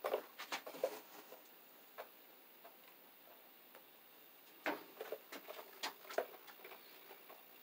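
Light clicks and taps from someone moving about and handling small objects. They come in two clusters, one at the start and another from about five seconds in, with a few single ticks between.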